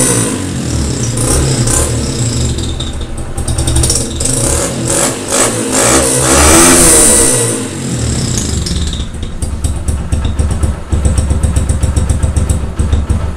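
Yamaha YBR Factor's single-cylinder engine running through an aftermarket ML Competition crackle-type exhaust by Roncar. It is revved several times, the pitch rising and falling. About two-thirds of the way through it settles to a fast, pulsing idle.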